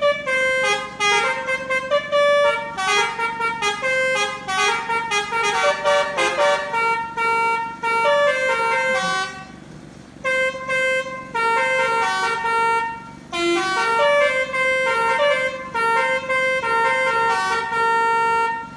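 Telolet basuri musical air horn on a tour bus playing a tune: quick runs of notes stepping up and down, with a short break about ten seconds in.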